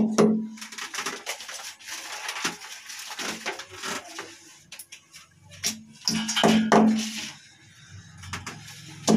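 Background music, with scattered light clicks and clatter from hand work against ceramic wall tiles.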